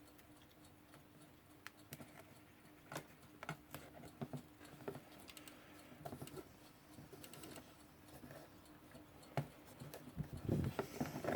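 Faint, irregularly spaced small clicks and light handling rustle over a low steady hum. There is a louder rustle near the end.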